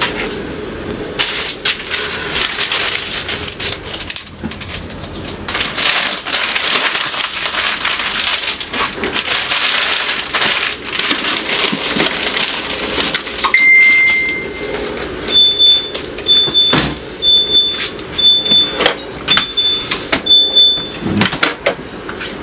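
A steady rushing noise, then one longer electronic beep, followed by a run of about seven short, high electronic beeps in quick succession.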